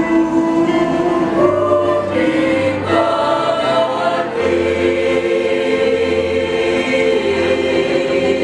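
A high-school choir singing in harmony: several short sung notes that step in pitch, then a long chord held through the second half.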